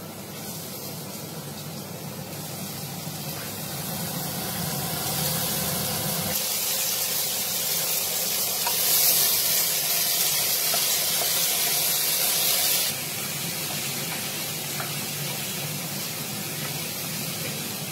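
Grated beetroot frying in a hot pan, a steady sizzling hiss that grows louder through the first half and drops suddenly about two-thirds of the way through.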